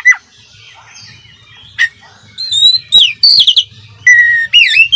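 Oriental magpie-robin singing a varied, mimicry-filled song in loud phrases: quick sweeping whistles and sharp chips a little after two seconds in, then a held whistle that breaks into fast up-and-down notes near the end.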